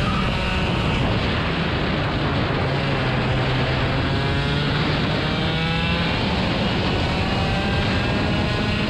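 Steady motor-vehicle engine noise, with engine pitch rising and falling a few times around the middle.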